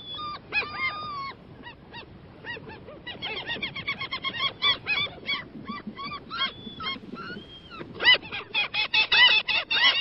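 A flock of gulls calling: many short, arched calls overlapping one another, growing busier near the end.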